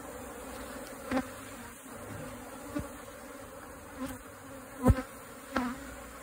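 A honey bee colony buzzing steadily around its opened nest. A few brief louder sounds break through the hum, the loudest about five seconds in.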